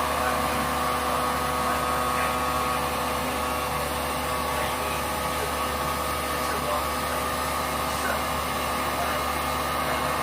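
Heat gun running steadily: a constant blower whir with a fixed whine, blowing hot air to melt ice built up in a refrigerator's freezer.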